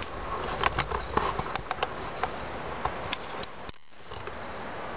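Footsteps rustling through dry grass and leaves, with scattered light crunches and clicks. They stop in a brief dropout just before four seconds in, leaving a steady outdoor hiss.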